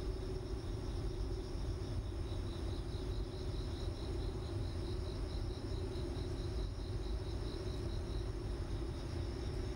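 High, thin chirping pulsing evenly about five times a second, like an insect, over a steady low hum and hiss.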